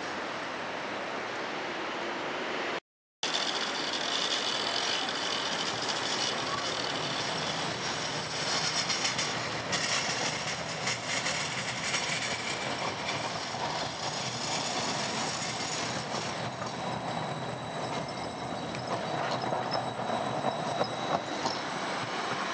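Low-floor Combino tram rolling past on street rails, with a steady rolling noise and a faint high squeal from the wheels. The sound cuts out completely for a moment about three seconds in.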